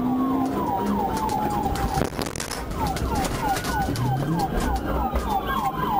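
Police sirens sounding together: one in a slow wail that glides down, rises again about three seconds in, then falls, and one in a fast yelp of about four short falling chirps a second.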